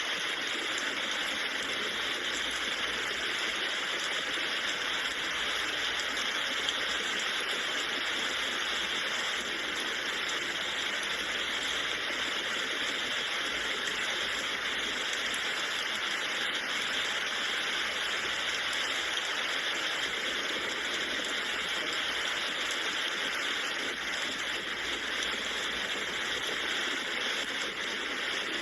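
Steady rain falling, an even hiss without breaks or changes.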